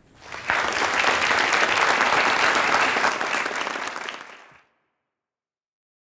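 Audience applauding. The applause builds within the first half second, holds steady, then is faded out about four and a half seconds in.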